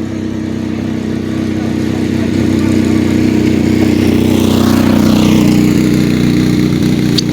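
Motorcycle engine approaching and passing close by, growing steadily louder until it goes past about five seconds in.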